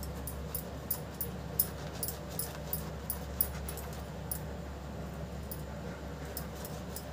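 Pastry brush dabbing and spreading oil over a pizza base on a ceramic plate: a run of quick, soft sticky clicks, several a second, that thins out about four and a half seconds in, over a steady low hum.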